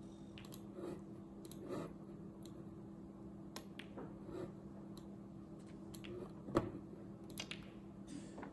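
Scattered sharp clicks of snooker balls: the cue striking the cue ball and balls knocking together during a break, the loudest knock about two-thirds of the way in, over a steady low hum.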